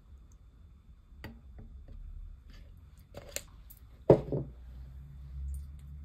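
Scattered light clicks and taps from handling a stainless steel bowl of gym chalk blocks coated in cornstarch paste, with one sharp knock about four seconds in that rings low for about a second.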